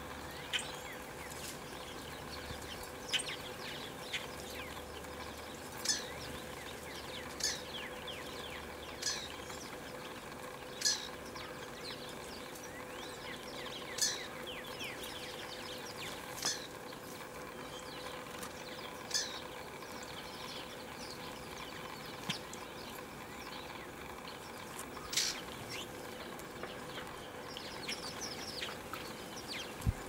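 House sparrows chirping: short, sharp cheeps coming irregularly every second or two, over a faint steady hum.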